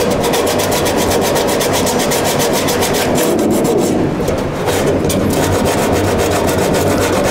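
Hand-sanding cured body filler (Bondo) at the edge of a car's grille opening with a folded sheet of sandpaper, in rapid back-and-forth scraping strokes.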